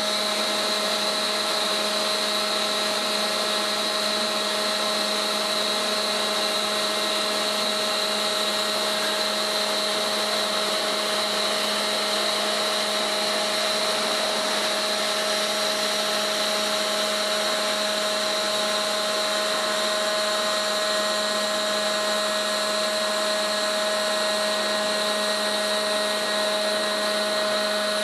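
Hydraulic winch running on a test bench, its hydraulic motor and the stand's pump giving a steady hum with a high whine, unchanged throughout.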